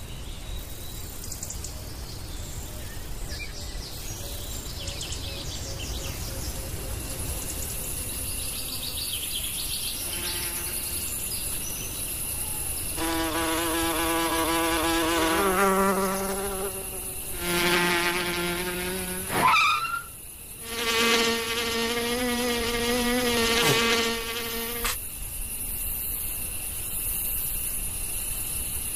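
Cartoon insect buzzing: a thin, high steady whine, joined from about halfway by three louder, wavering wing buzzes lasting a few seconds each, the middle one sweeping sharply up in pitch as it ends.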